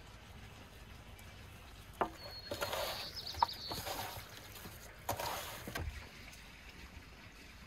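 Hands working raw lamb: seasoned chunks are mixed and then the stomach lining is handled, giving two bursts of wet handling noise. A single sharp knock comes about two seconds in.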